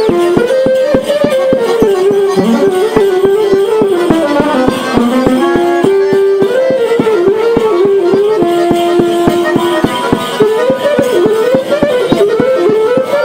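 Romanian folk dance music for a hora: a winding lead melody over a fast, steady beat.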